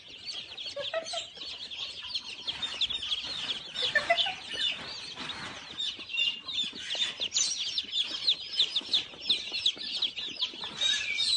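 A crowd of baby chicks peeping all at once: a dense, continuous chorus of short, high cheeps.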